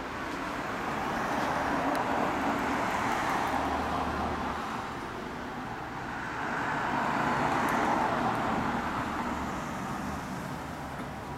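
Road traffic passing: two vehicles go by in turn, each a rush of tyre and engine noise that swells and fades.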